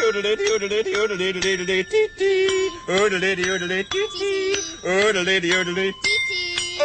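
Music: an instrumental break from a children's song, a pitched lead melody that bends into each note over a lower line, with jingling bells, played on a homemade pogo-stick music contraption of cans, bells and a small drum struck with a stick.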